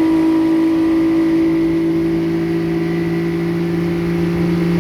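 Yamaha 40 outboard motor running under way, its engine note joined by a steady high-pitched whistling ring. The ring is strongest at low revs and is an unexplained fault that a full teardown did not trace.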